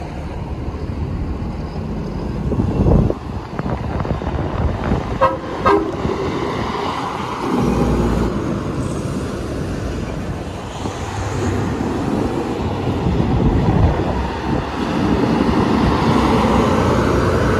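Diesel semi-trucks driving past one after another, their engines running under load, with a couple of short horn toots about five seconds in.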